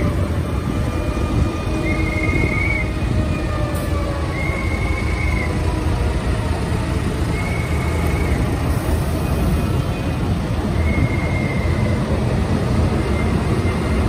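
Diesel engines of Fendt Vario tractors running as they drive slowly past in a line. A short high beep repeats about every two to three seconds over the steady engine rumble.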